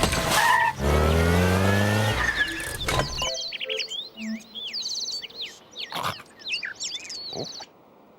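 A loud engine-like revving sound with a squeal for about three seconds, then it cuts off and a flurry of quick high bird chirps follows, stopping shortly before the end.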